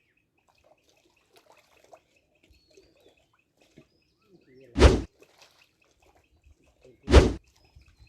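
Faint birds chirping, then two loud, short thumps about two seconds apart.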